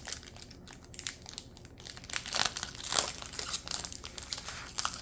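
Foil wrapper of a Pokémon card booster pack crinkling as it is handled and opened, a run of irregular crackles with louder bursts around the middle and near the end.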